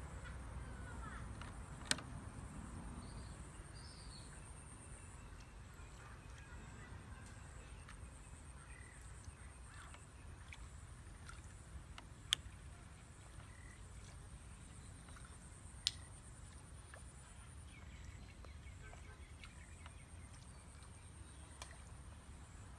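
Quiet outdoor ambience: faint bird calls over a low rumble and a steady high-pitched buzz, broken by three sharp clicks.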